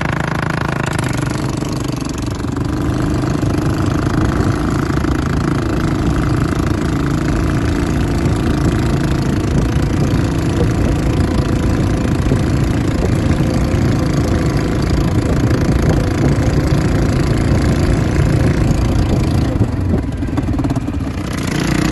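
ATV (quad bike) engine running steadily while riding across sand.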